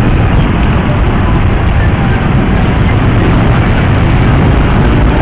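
Boda boda motorcycle taxi riding through dense city traffic, heard from on the bike: a loud, steady rumble of its engine and the surrounding traffic.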